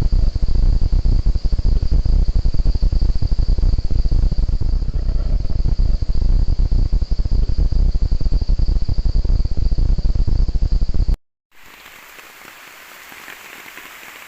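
Insects trilling steadily at a high pitch over a loud, crackling low rumble. About 11 seconds in it cuts off abruptly, and a quieter steady hiss follows.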